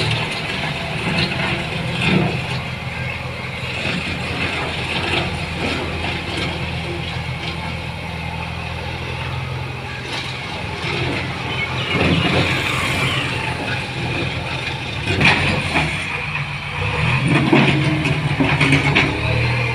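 JCB backhoe loader's diesel engine running under load as the front bucket pushes soil along the verge, swelling louder about twelve seconds in and again near the end. A few sharp knocks stand out, loudest about fifteen seconds in.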